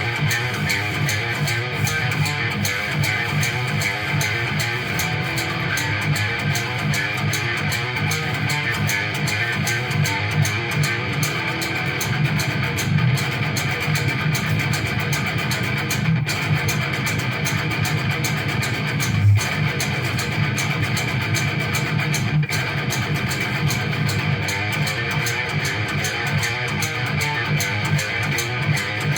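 Guitar music, with plucked and strummed guitar over a bass line, playing steadily throughout.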